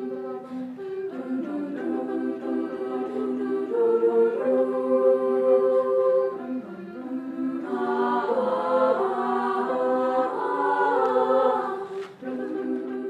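A choir singing unaccompanied in held, sustained notes, growing fuller and louder about eight seconds in, with a brief break near the end.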